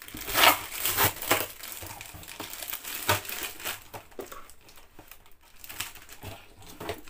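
Packaging being handled in a cardboard box: irregular crinkling and crackling of plastic wrapping and cardboard as hands rummage through it, loudest in the first second and a half.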